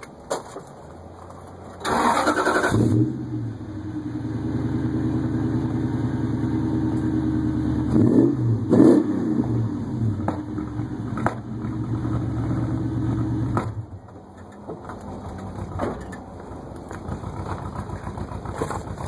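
2000 Toyota Tundra SR5 engine, breathing through JBA headers and a Borla cat-back exhaust, heard at the tailpipe as it starts about two seconds in and then idles steadily. It revs briefly twice around eight and nine seconds in and stops about fourteen seconds in.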